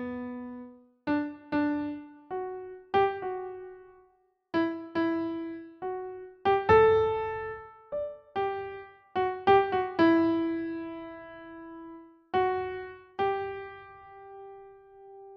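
Background music: a slow solo piano melody of single notes, each struck and left to ring and fade, with short silent gaps between phrases.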